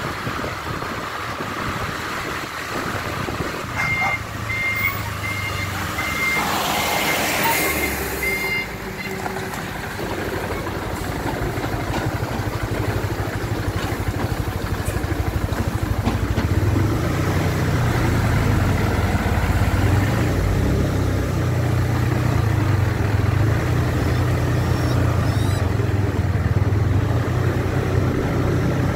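Sand-laden Hoa Mai dump truck's engine running as it drives along, getting louder in the second half. About four seconds in, a run of about seven short, high, evenly spaced beeps sounds over it.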